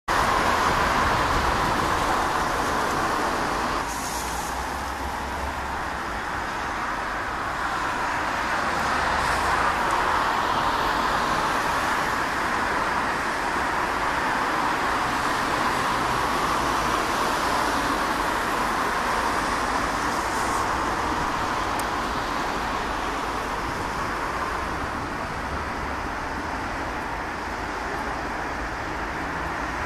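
Distant jet roar of a Boeing 737-800's CFM56 engines as the airliner passes high overhead: a steady rushing noise that swells slowly toward the middle and fades again near the end.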